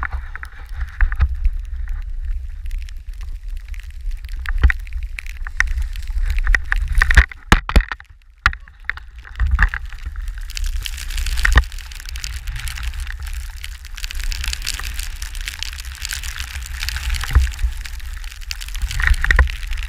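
Wind buffeting an action camera's microphone during a fast powder-ski descent, with skis hissing through deep snow and scattered knocks. The hiss grows stronger from about halfway on, after a brief lull about eight seconds in.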